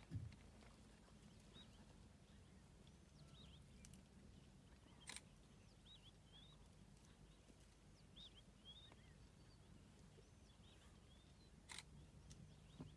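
Near silence with faint, scattered bird chirps. A few sharp clicks come near the start, about five seconds in and near the end.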